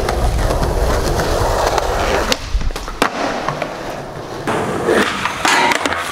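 Skateboard wheels rolling on smooth concrete with a low rumble that drops away about halfway, then a few sharp clacks and scrapes of the board on the concrete.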